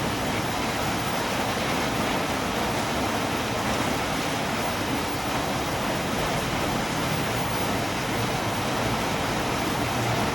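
Steady rainfall, an even unbroken hiss with no pauses or single drops standing out.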